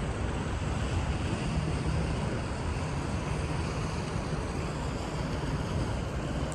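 Steady outdoor noise with a flickering low rumble: wind buffeting the microphone over a constant background hiss.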